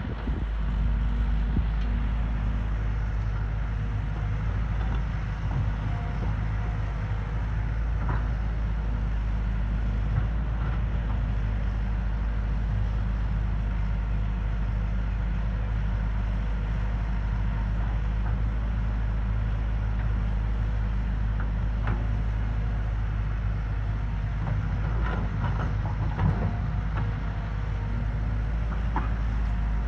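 Bulldozer's heavy diesel engine running at a steady, even pitch, with a few short knocks, mostly in the last few seconds.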